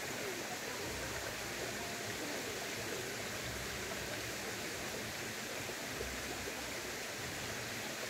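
Mountain valley stream flowing, a steady, even rushing of water.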